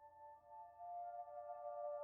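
Soft ambient background music: several sustained chime-like tones that swell louder about a second in.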